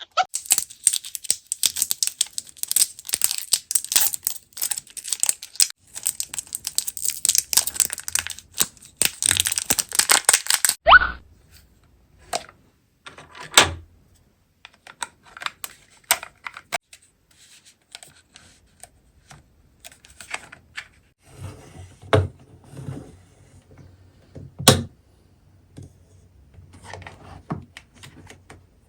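Plastic toy packaging being torn open and crinkled: a dense run of rapid crackling for about the first ten seconds, then scattered taps and clicks as the toys are handled.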